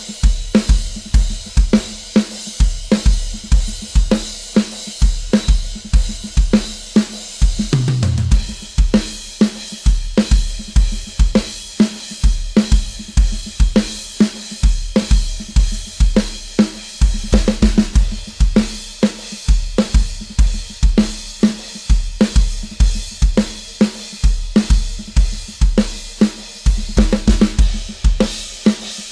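Drum kit playing a steady groove of kick drum, snare and cymbals, with a tom fill running down in pitch about eight seconds in.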